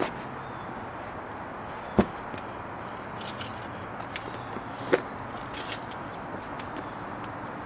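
Steady high-pitched chirring of insects, with two sharp knocks about two and five seconds in and a lighter click between them.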